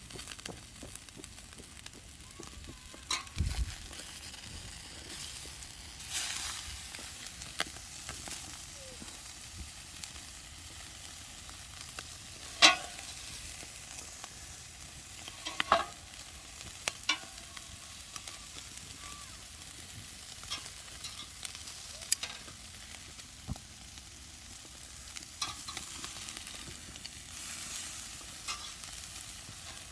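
Pork neck sizzling over a wood fire: a steady hiss broken by scattered sharp crackles and clicks, the loudest a little before halfway, with a single low thud early on.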